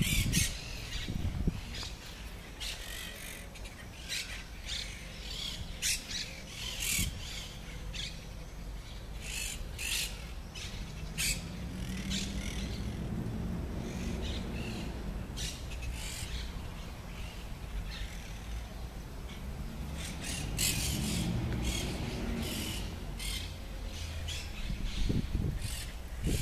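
Birds in the trees giving many short chirps and squawks, with a low rumble that swells and fades twice.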